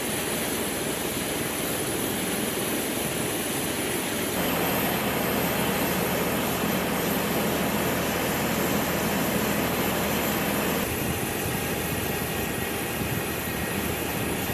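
Steady engine and machinery drone with a constant high whine, from the equipment working around an aircraft being pressure-refueled. Its tone and fullness change abruptly twice, about four and eleven seconds in.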